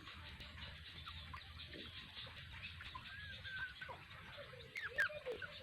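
Faint bird calls: a few short chirps and gliding notes in the middle, and a lower, drawn-out call near the end.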